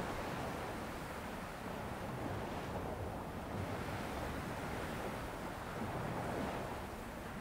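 Ocean surf breaking and washing: a steady rush of water noise with no single sharp crash.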